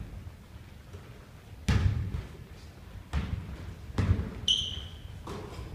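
A basketball bouncing three times on a hardwood gym floor, each hit ringing in the hall. A sneaker squeaks once on the floor about halfway through.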